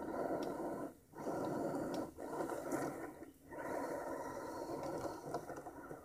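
Axial SCX10 Trail Honcho RC crawler's electric motor and gearbox whirring in spurts as it crawls downhill. It cuts out briefly about a second in, just after two seconds, and around three and a half seconds, with a few small clicks on top.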